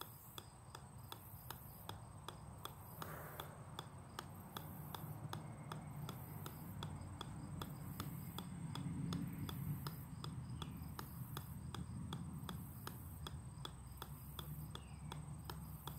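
Golf ball bouncing again and again on the steel head of an 8-pound sledgehammer: a steady, evenly spaced run of light clicks.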